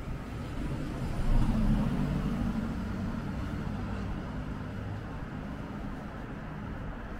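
City street traffic: a motor vehicle passes close by, loudest about a second and a half in, then fades into the steady low hum of traffic.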